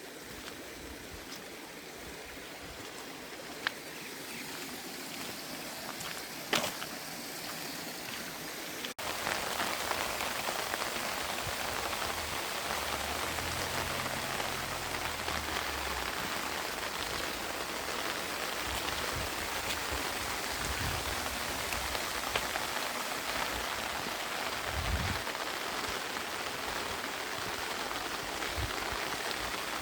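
Rain falling steadily, with scattered drops ticking sharply nearby. About nine seconds in the sound cuts to a louder, denser downpour.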